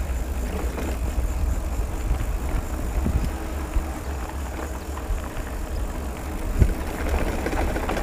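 Mountain bike riding over a rough, eroded dirt track: steady wind rumble on the microphone with the bike's tyre and frame rattle, and two sharp knocks, one about three seconds in and one later.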